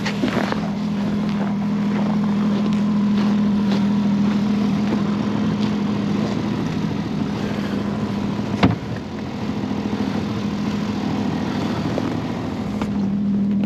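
Snowmobile engine idling steadily with an even low hum. A single sharp click comes about two-thirds of the way through.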